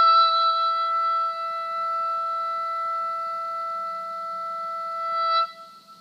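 Oboe holding one long high note, swelling briefly just before it stops about five and a half seconds in; a faint echo of the note carries on for a moment after.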